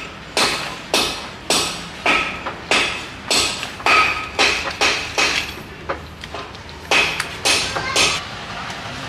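A run of sharp, evenly paced strikes, about two a second, each with a short metallic ring, pausing briefly about six seconds in before three more.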